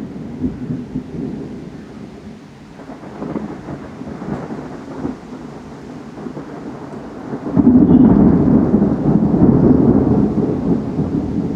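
Thunder from close lightning: a low rolling rumble fades off, then about two-thirds of the way through a new, much louder peal breaks in suddenly and keeps rumbling. Rain falls underneath.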